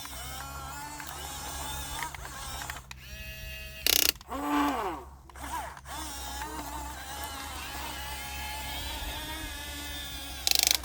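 Electric motors and plastic gearboxes of a radio-controlled excavator whining as it works, the pitch shifting as the motors speed up and slow down. Two short, loud bursts of noise break in, one about four seconds in and one near the end.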